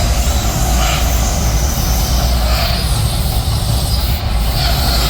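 The Mirage volcano show erupting: a loud, continuous low rumble with a hissing roar over it.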